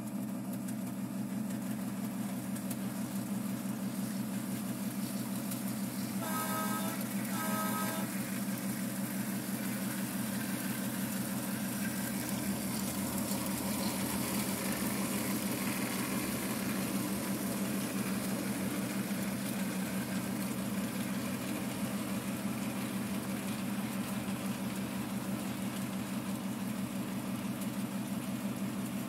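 Diesel locomotive sound from a model train: a steady engine drone, with two short horn toots about six and a half and seven and a half seconds in.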